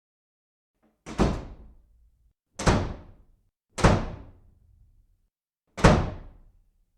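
Four heavy bangs, each sudden and dying away quickly, spaced unevenly over a few seconds.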